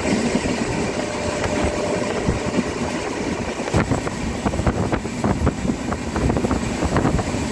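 Steady rumble of a moving passenger train with wind noise, and a run of rapid knocks and clatter from about four seconds in, typical of wheels running over rail joints.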